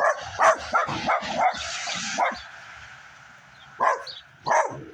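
Dog barking in a quick flurry of short, sharp barks, then two more barks near the end; barking at the cats.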